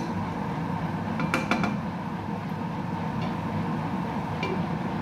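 Steady noise of a pan of chicken cooking in liquid on the stove, with a few quick metallic clinks of a utensil against the pan about a second and a half in.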